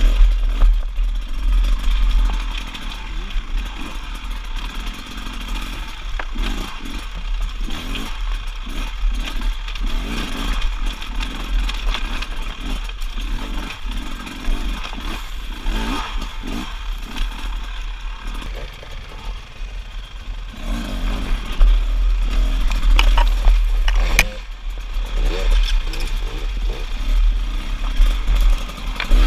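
Enduro dirt bike engine running under the rider on a rocky climb, its revs rising and falling unevenly, with stones clattering and scraping under the tyres. It gets louder about two-thirds of the way through.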